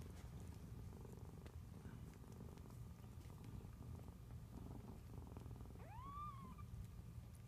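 Mother cat purring steadily while nursing her newborn kittens. About six seconds in, a newborn kitten gives one short, high mew that rises and then falls.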